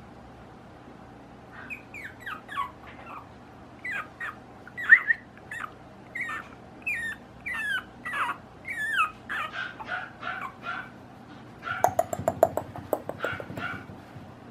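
Five-week-old puppy whimpering in a long series of short, high whines that slide down in pitch, followed by a quick flurry of short sharp sounds near the end.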